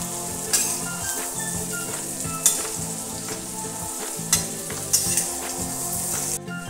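Boiled baby potatoes frying in spiced oil in a kadai, with a steady sizzle, while a spatula stirs them and scrapes against the pan several times to coat them in the masala.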